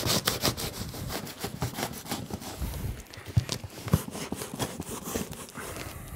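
A knife sawing and scraping at a heavily taped cardboard box, in quick rough strokes at first, then more slowly, with a couple of sharp knocks around the middle.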